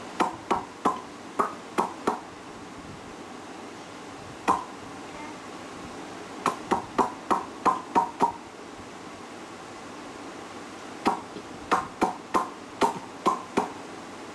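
A person making popping noises with the mouth: sharp, hollow pops, each with a short ringing pitch. They come in quick runs of about two to three a second: six at the start, a single pop, then two longer runs of eight or nine.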